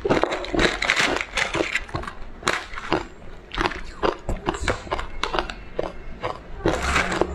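Biting and crunching through pieces of colored ice: a dense, irregular run of sharp crunches, several a second.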